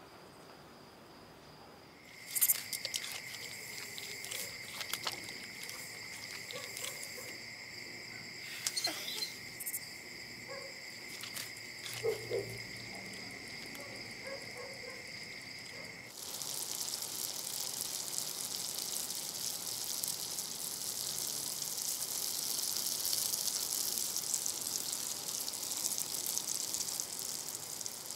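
Crickets chirring in a steady high trill, with scattered small clicks and rustles. About halfway through this gives way to the steady hiss of food sizzling in a frying pan.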